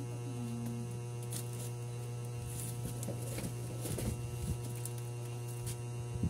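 Steady low electrical hum, with a few light knocks and rustles as a cardboard box and goods are handled.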